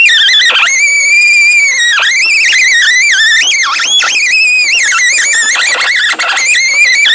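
Handheld high-speed rotary tool working rusty sheet steel: a loud high whine whose pitch sags and wavers several times as the tool is pressed on and eased off the metal.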